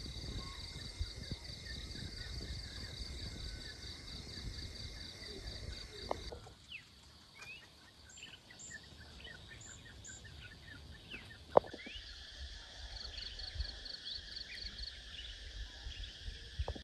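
Forest ambience: an insect's high pulsing trill for the first six seconds, then scattered bird chirps and a steady insect buzz, with a second burst of the pulsing trill a little after halfway. A single sharp click stands out near the middle.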